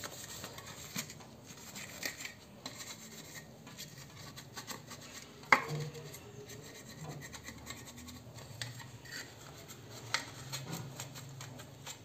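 Green scrub pad rubbed gently over a wet, soapy clear plastic fridge door rack, a faint scrubbing with light scrapes and clicks. One sharp knock of the plastic about five and a half seconds in.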